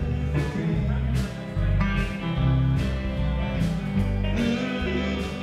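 Live rock band playing an instrumental passage: electric guitars over bass guitar and drums, with a steady beat.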